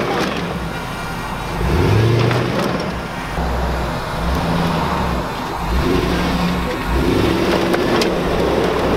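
Hummer H2's V8 engine revving up and down in several surges as the truck climbs a loose dirt mound, tyres spinning and throwing dirt.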